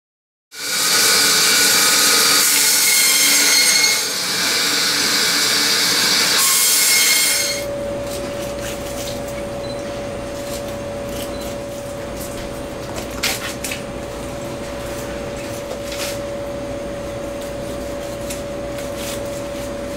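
A loud whirring machine noise for about seven seconds, then a steady mechanical hum with a single held tone for the rest of the time, broken by a few faint clicks.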